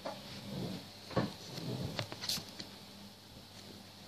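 Handling and movement noise in a small room: soft rustling with a few light knocks, the sharpest about a second in.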